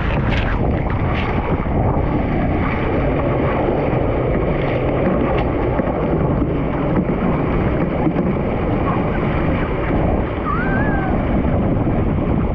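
Surfski running through choppy waves: a steady loud rush of water spray along the hull mixed with wind buffeting the deck-mounted camera's microphone, with a couple of sharp splashes about a second in.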